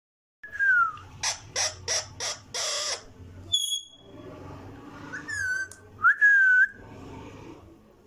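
Indian ringneck parakeet calling. A short falling whistle is followed by a quick run of five harsh squawks, the last one longer. Three more clear whistles come over the next few seconds, one of them rising and then held.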